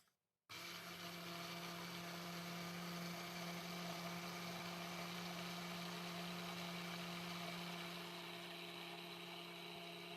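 Immersion blender motor running steadily with its head at the bottom of a tall glass, gently whipping oil, egg, mustard and vinegar into homemade mayonnaise. The even hum starts about half a second in.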